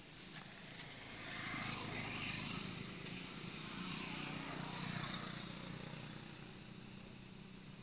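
An engine passing by: a steady motor noise that swells from about a second in, holds for a few seconds and fades away again.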